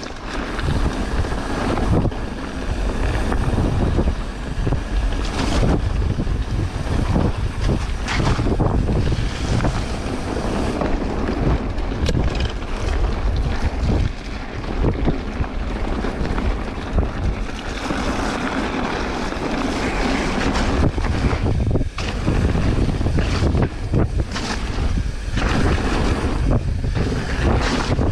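Wind rushing over the microphone of a camera riding along on a mountain bike, with tyre noise from the trail and frequent knocks and rattles from the bike over rough ground.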